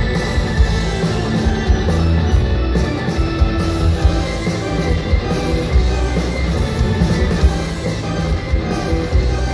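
Rock music playing: a full band mix with a pulsing low end.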